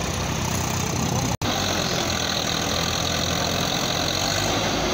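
Swaraj 855 tractor's diesel engine running steadily under load, pulling a trolley loaded with mud through soft ground. The sound cuts out for an instant about a second and a half in.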